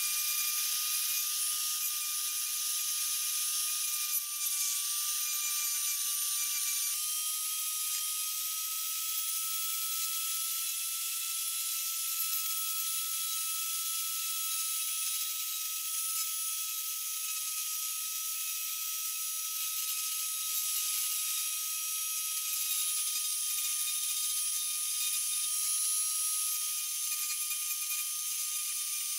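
Handheld electric rotary tool running with a steady high whine, its small bit carving into a wooden handle piece, the pitch shifting slightly about seven seconds in.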